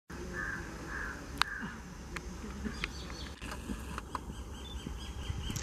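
Birds chirping, with a sharp click about a second and a half in and an insect buzzing steadily from about four seconds in. Beneath them is a low rumble from a pair of distant WDG4 diesel locomotives hauling a freight train up a gradient.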